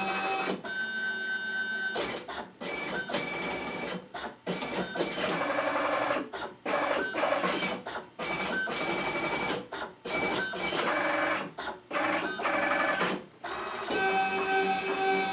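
Stepper motors of a home-built CNC machine whining as its axes run through a test pattern: a string of short moves, each with its own pitch, with brief pauses between them.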